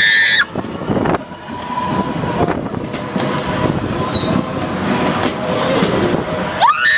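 Carnival ride machinery running with a steady rumbling clatter. A short, high-pitched rising squeal comes near the end.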